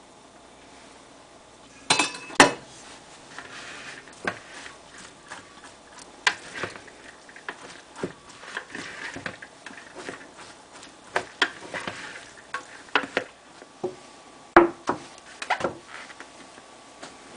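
Rice paddle clacking and scraping against a clear mixing bowl as freshly cooked rice is cut and mixed with sushi vinegar: irregular knocks starting about two seconds in, with soft rustling of the rice between them.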